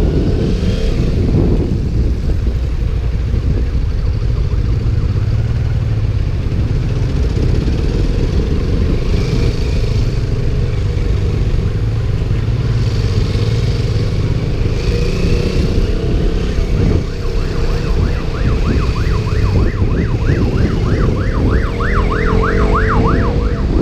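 KTM Duke motorcycle riding through town, its engine rising in pitch a few times as it accelerates under heavy wind buffeting on a GoPro mic in a waterproof case. In the last six seconds a fast yelping siren warbles up and down, about three or four times a second.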